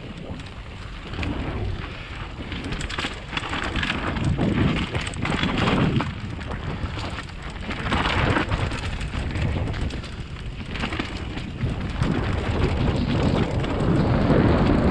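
Mountain bike running fast down a dirt singletrack: a steady rumble of tyres on loose dirt and stones, with many rattles and knocks from the bike over bumps. The noise swells and eases every couple of seconds, loudest near the end.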